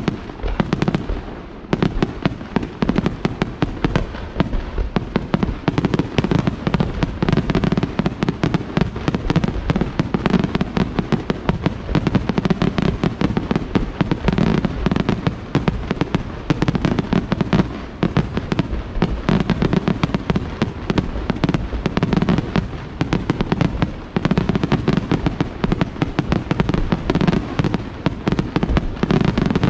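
Aerial fireworks shells bursting in a dense, continuous barrage: many sharp bangs a second, overlapping with no let-up.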